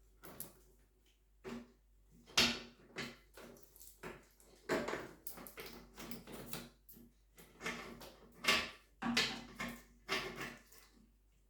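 Irregular clinks, knocks and short scrapes of parts and hand tools being handled during motorcycle assembly, the loudest about two and a half seconds in and again around nine seconds, over a faint steady hum.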